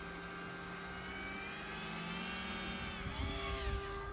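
Radio-controlled model speedboat's motor whining under way, the whine climbing in pitch and then falling away about three seconds in, over a steady hiss.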